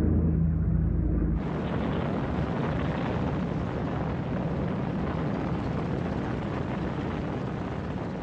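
Steady low drone of a propeller aircraft's piston engines. About a second and a half in it cuts to a steady, hissing roar of B-29 Superfortress Wright R-3350 radial engines and propellers running, with smoke streaming from the nacelles.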